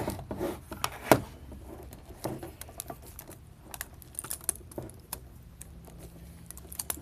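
Clicks and rattles of power-supply cables and plastic connectors being handled, with one sharper click about a second in.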